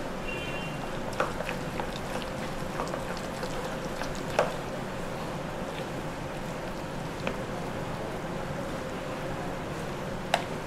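Steel spoon stirring thick semolina batter with grated vegetables in a plastic bowl: soft wet squelching with scattered clicks of the spoon against the bowl, the sharpest about a second in, near four and a half seconds, and near the end, over a steady low hiss.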